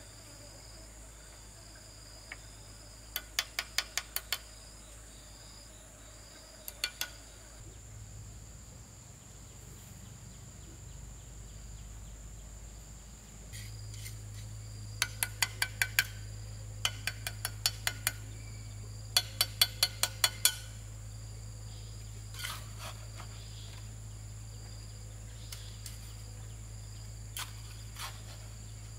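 Steady high drone of insects, with runs of five to seven sharp taps coming several to the second, heard four or five times, and a few single taps near the end. A low hum grows louder about halfway through.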